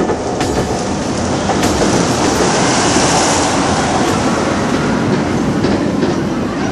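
A train running on the rails with a steady rumble and clatter, a little louder in the middle.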